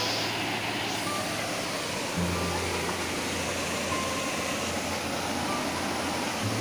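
Waterfall water rushing, a steady, even noise.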